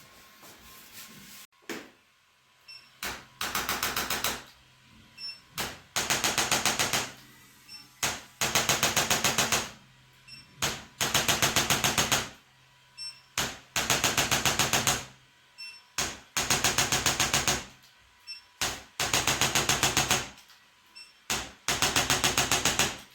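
Rapid mechanical pulsing at about eight beats a second, in bursts of a second or two that repeat every two to three seconds, eight times over.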